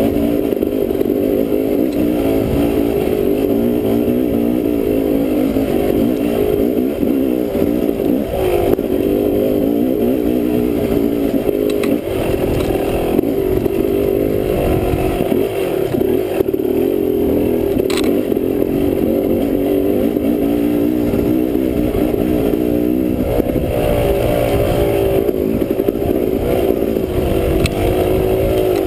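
Dirt bike engine running while riding a rough trail, its pitch rising and falling with the throttle, with a few sharp knocks from the bike over the ground.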